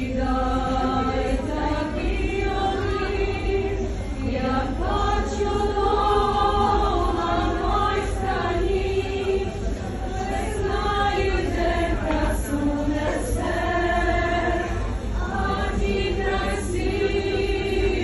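A large crowd singing a song together in unison, in a packed metro station hall.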